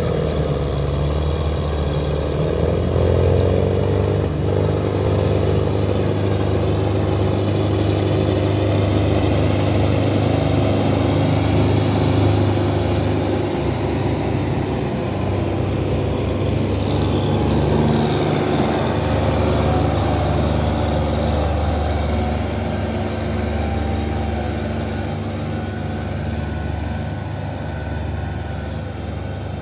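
Diesel tractor engine labouring as it pulls a heavily loaded sugarcane trolley, a steady low running drone whose pitch shifts a little with the load. It grows somewhat quieter over the last several seconds as the tractor moves off.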